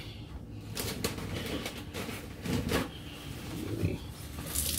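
Kitchen clean-up handling noises: scattered small knocks and clicks with a few low murmured vocal sounds. Near the end a kitchen tap is turned on and water starts running into the sink.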